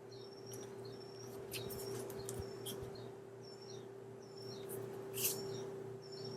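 Faint handling of paper and plastic packaging, with short crinkly rustles and a sharper rustle about five seconds in. Short high chirps, each dipping and rising, repeat about once a second over a steady low hum.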